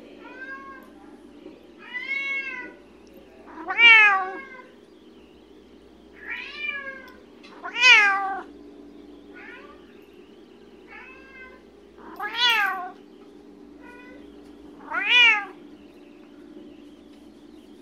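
Bengal cat meowing over and over, about ten meows each rising then falling in pitch, a second or two apart, the four loudest coming at intervals of about four seconds. A steady low hum runs underneath.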